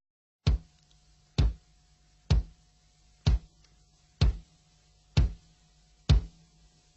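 A music track's opening beat: a lone kick drum thumping about once a second, seven times, over a faint steady hum.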